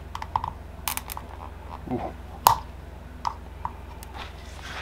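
Plastic case of a Tracker Lithium 12Ah LiFePO4 battery being cracked open by hand: a run of sharp, irregular cracks and clicks as the case seam gives, the loudest about one second in and again about two and a half seconds in.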